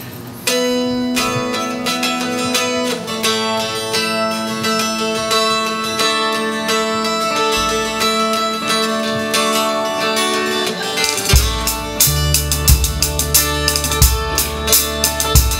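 Live folk-rock band playing an instrumental song intro: acoustic guitar picking a melody, with bass and drums coming in about eleven seconds in.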